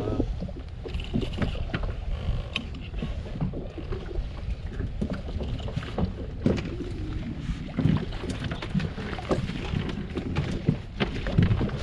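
Wind buffeting the microphone aboard a small fishing boat, a steady low rumble, with scattered light knocks and clicks throughout.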